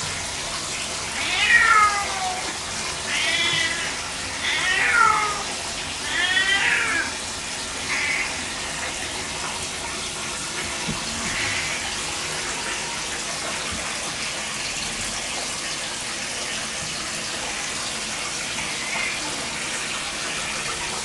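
Domestic cat meowing, with calls falling in pitch: four loud ones in the first seven seconds, then a few fainter ones, over the steady hiss of water running from a tap.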